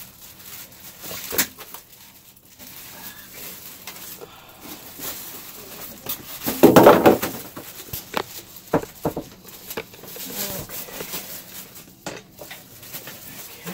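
Plastic bag wrapping a PC case rustling and crinkling as the case is pulled out of its foam end caps and lifted, with scattered handling clicks and knocks. One louder, squeaky sound about seven seconds in.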